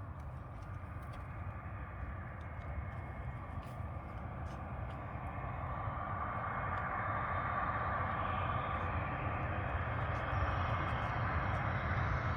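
Jet airliner approaching to land, its engine noise and whine growing steadily louder as it comes in.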